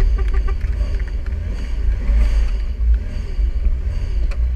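Jeep Wrangler crawling slowly up a rocky trail: a steady, low engine rumble.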